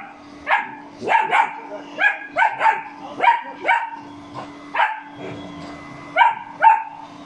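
Young German Shepherd barking at a robot vacuum, about eleven sharp barks in irregular spurts. The robot vacuum's faint steady hum runs underneath.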